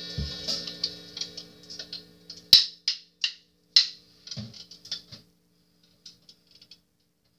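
Drum kit played with sticks: light, irregular taps, mostly on the cymbals, with a few louder accents. There is a low drum hit just after the start and another about four seconds in. The playing thins out to a few faint stick ticks after about five seconds.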